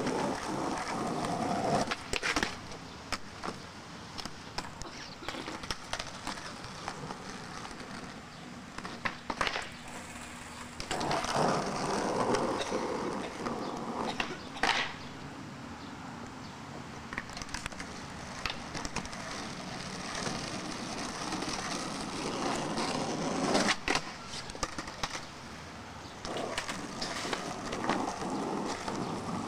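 Skateboard wheels rolling over rough concrete, coming and going in several runs, with a few sharp clacks of the board hitting the ground.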